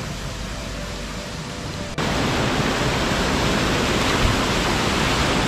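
Steady rushing of a small river cascade, cutting in abruptly about two seconds in after a quieter steady hiss. A brief splash of a person jumping into the pool comes about two seconds later.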